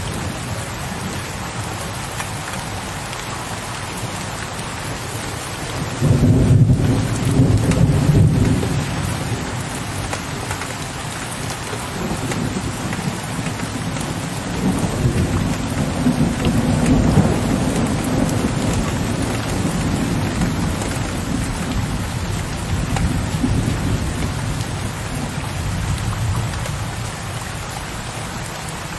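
Steady rain, with low thunder breaking in suddenly about six seconds in and rumbling on in rolling waves before it fades.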